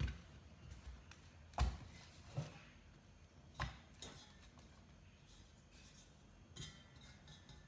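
A few scattered knocks and clunks of bowl and utensils being handled on a kitchen counter, the loudest about a second and a half in.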